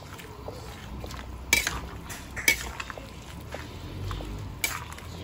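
A utensil stirring soup and shredded cabbage in a large metal pot, with three sharp knocks of the utensil against the pot, at about one and a half, two and a half and four and a half seconds in.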